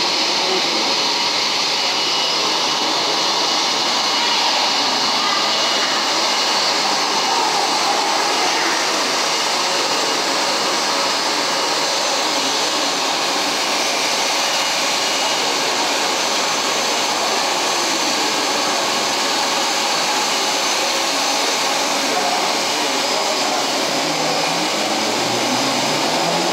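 Jet airliner's engines running at taxi idle, a steady whooshing whine with faint high tones, as the Airbus A320-family jet rolls up to the gate.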